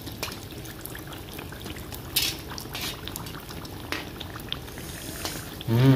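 Battered tofu deep-frying in hot oil: a steady bubbling sizzle with small crackles. A perforated metal skimmer clinks against the pan a few times as the pieces are turned, most sharply about two seconds in.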